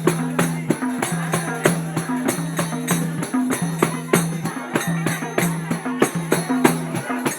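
Music with a steady beat: regular jingling percussion strokes over held low notes that change every second or so.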